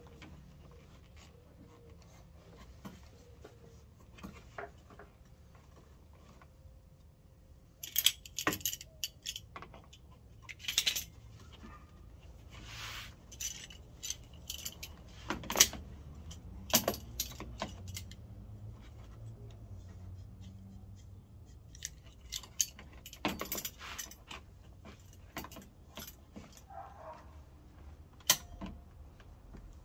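Scattered metallic clinks, taps and knocks as C-clamps and hand tools are handled against a plastic front lip spoiler being fitted under a car's bumper. The clicks come in clusters, with the sharpest knock about halfway through.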